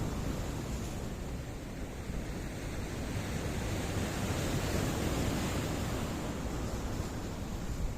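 Sea waves washing over stones: a continuous rushing wash with a deep low rumble, easing a little about two seconds in and swelling again later.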